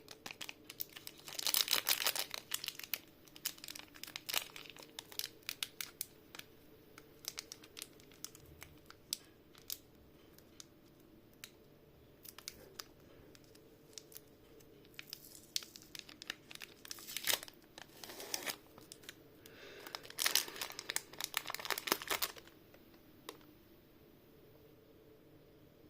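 Close-miked crunching of M&M's chocolate candies: sharp crackles and clicks from the candy shells. The sound comes in bursts, densest about two seconds in and again around seventeen to twenty-two seconds in, and dies away near the end.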